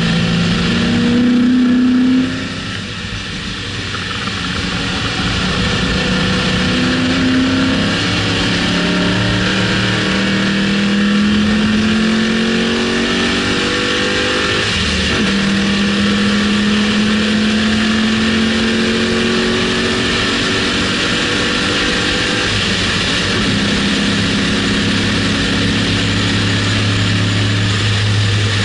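A 2006 Mustang GT's 4.6-litre V8 under track acceleration, with wind and tyre noise. It eases off about two seconds in, then pulls hard, climbing in pitch through several upshifts.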